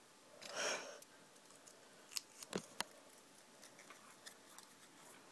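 Small plastic parts of a Lego-style minifigure being handled and snapped back together: a soft rub in the first second, then a few sharp clicks between two and three seconds in, and faint ticks after.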